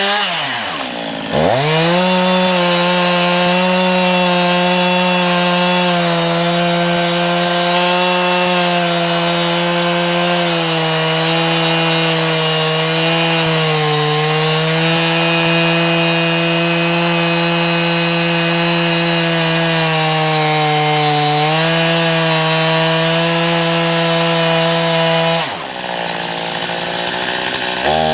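Two-stroke chainsaw at full throttle ripping lengthwise through a log with a chainsaw mill attachment, its pitch sagging slightly under the load of the cut. Twice the throttle is let off and squeezed again, the engine dropping toward idle and revving back up: about a second in and near the end.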